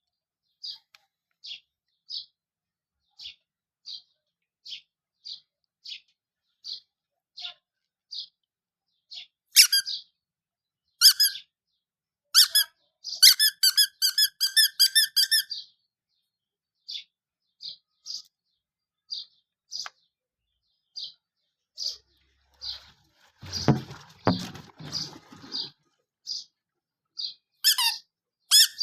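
Baby chicks peeping: short high single peeps about one and a half a second, breaking into louder, quicker runs of peeps partway through and again near the end. A brief rustling scuffle about two-thirds of the way in.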